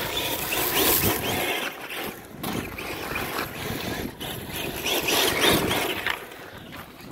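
Radio-controlled rally car's motor revving in surges as it slides on loose dirt, loudest about a second in and again around five seconds, with its tyres scrabbling through gravel.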